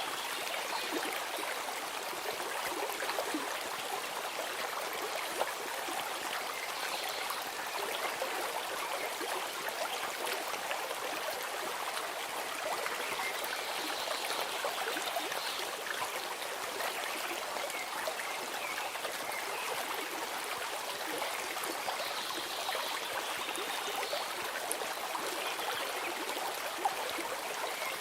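A stream flowing steadily, an even rush and trickle of running water.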